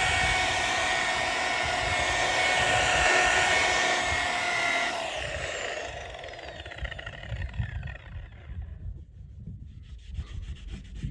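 Cordless angle-grinder-type polisher with a foam buffing pad running at a steady high whine while polishing the aluminum hull with marine polish. About five seconds in it is switched off and winds down, its whine falling in pitch and fading. Faint rubbing follows near the end.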